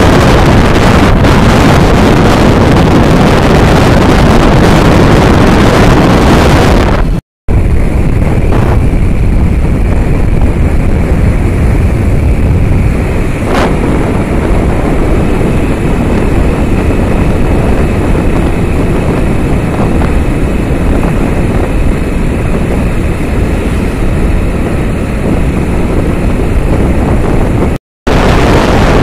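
Loud wind buffeting on the microphone of a moving motorcycle, over the rumble of the engine and road. The sound cuts out for a moment about seven seconds in and again near the end.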